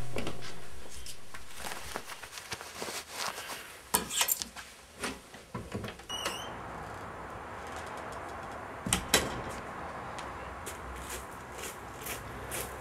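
Guitar music fades out. Then come scattered clicks and knocks as a front door's latch is worked and the door is opened, with a short squeak about six seconds in. A couple of sharp knocks about nine seconds in sound like the door shutting, over a steady background hiss.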